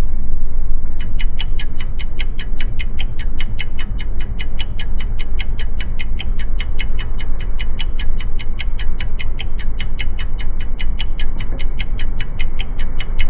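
Fast, even ticking, about five ticks a second, starting about a second in, laid over a muffled low rumble of the tow boat's motor and water.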